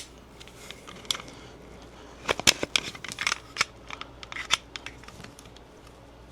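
Glock 47 pistol being taken down: a sharp metallic click, then a run of small clicks and rattles as the slide is worked against the frame to come off. The new slide is stiff to remove.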